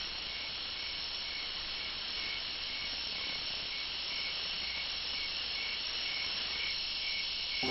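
Crickets chirping in a steady night-time chorus, with one pulsing chirp repeating about twice a second over a constant high trill.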